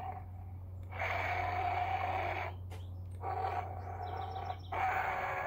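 Playmates Godzilla vs Kong Mega Kong figure's built-in sound feature playing recorded Kong roars through its small speaker: three roars in a row, each a second or more long, with short gaps between them. A steady low hum runs underneath.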